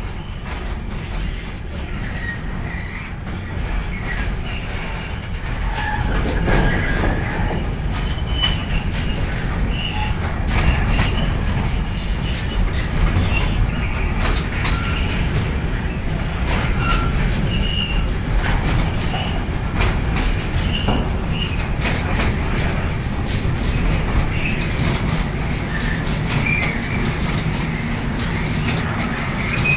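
Container freight train passing close by: a steady rumble of the flat wagons on the rails, with many clicks from the wheels and short high wheel squeals scattered through it. It gets a little louder about six seconds in.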